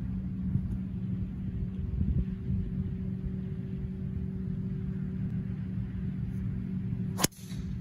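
A driver striking a teed golf ball: one sharp crack with a short ring after it, near the end. A steady low engine-like hum runs underneath throughout.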